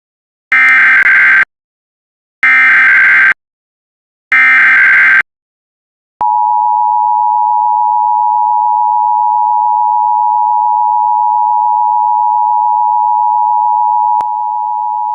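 Emergency Alert System SAME header: three bursts of digital data tones about a second long each, followed from about six seconds in by the steady two-tone EAS attention signal (853 and 960 Hz). A click comes about 14 seconds in, after which the tone goes on slightly quieter.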